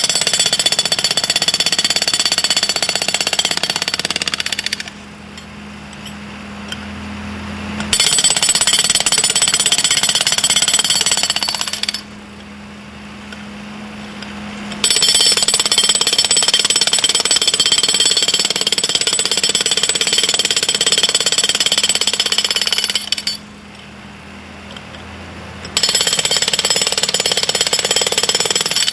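Red handheld hydraulic breaker hammering into a concrete slab in four long spells with short pauses between them. Through the pauses the hydraulic power pack driving it keeps up a steady low engine hum.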